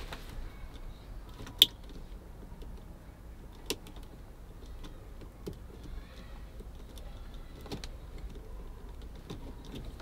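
Light handling noises of someone working by hand, with a few sharp clicks: the loudest about one and a half seconds in, another near four seconds, and smaller ticks after, over a faint low hum.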